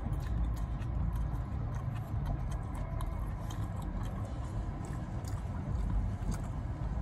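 Mouth sounds of chewing a taco, faint wet clicks now and then, over a steady low rumble inside a vehicle cabin.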